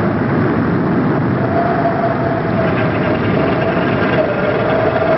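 Kilauea volcano erupting: a loud, steady rumbling noise with a wavering tone running through it from about a second and a half in.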